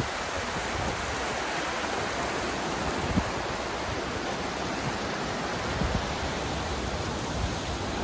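Flood-swollen river after heavy rain rushing past a concrete bridge pier: a steady, full roar of fast turbulent water. A brief low thump about three seconds in and another near six seconds.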